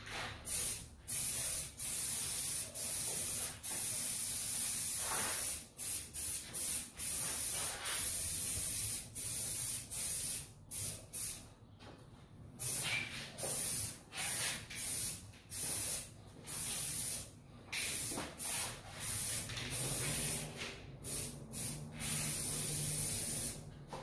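Aerosol spray can hissing in a long run of short bursts, most under a second and a few near a second and a half, with brief pauses between them, as a coat is sprayed onto wet resin.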